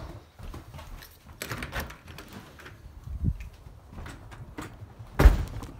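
A house front door being opened and shut, with footsteps and small knocks. A single loud thump about five seconds in is the loudest sound.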